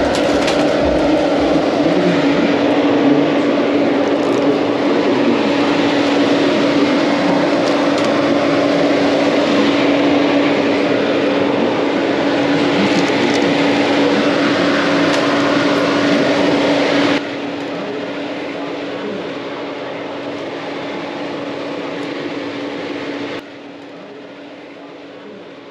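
Steady machine hum with a rushing fan noise and one steady low tone, as from bakery oven and ventilation fans. It drops abruptly in level about 17 seconds in and again near the end.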